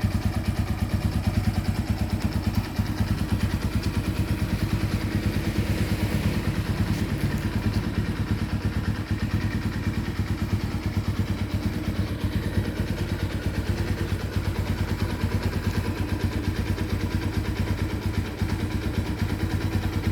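Honda Tiger's single-cylinder four-stroke engine idling steadily and evenly, a smooth-running engine.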